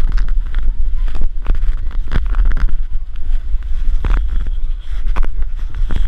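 Heavy wind buffeting and irregular knocks on an arm-strapped GoPro as the rider is thrown about on a bucking mechanical bull.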